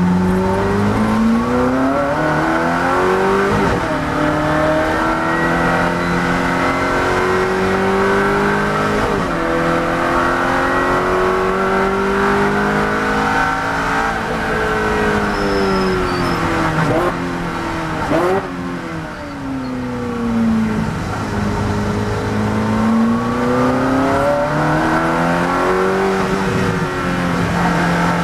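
Ferrari 430 GT3's V8 engine from inside the cockpit, accelerating hard through the gears with pitch climbing and dropping back at each upshift. Past the middle the revs fall away under braking with a couple of sharp downshifts, then climb again as it accelerates out of the corner.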